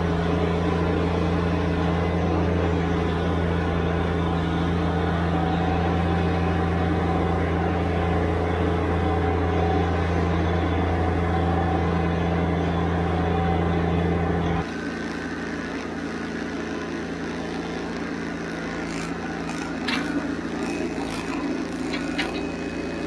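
Subcompact tractor's diesel engine running steadily at a constant speed. About two-thirds of the way in it drops abruptly quieter, and a few sharp clicks and knocks come near the end.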